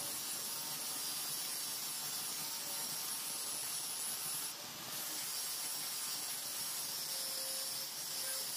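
Angle grinder running with a steel knife blank, cut from an old saw blade, held against its spinning disc: a steady grinding hiss over the motor's whine. The grinding eases briefly about halfway through as the blade is shifted on the disc.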